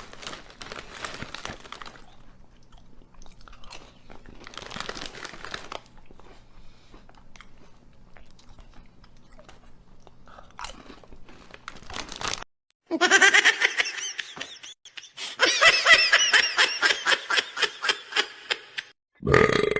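Quiet crunching, like chewing, for about twelve seconds. Then two loud stretches of a high, pitched sound pulsing rapidly.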